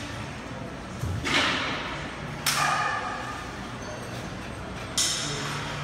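Gym weight equipment clanking: three sharp clanks, about a second in, a second and a half later and near the end, each ringing briefly, over the steady background noise of a gym.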